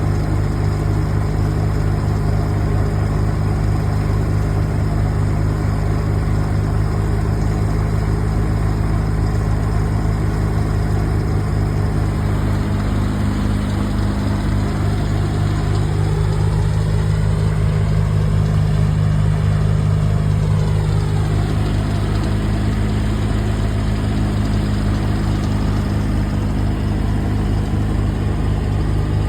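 A large engine running steadily at idle, loud and unbroken, with a sound that rises and then falls in pitch over several seconds around the middle.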